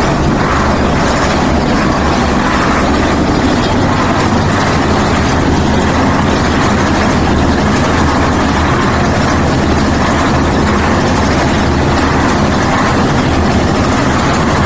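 Concrete mixer machine's engine running steadily and loud, with an even mechanical noise.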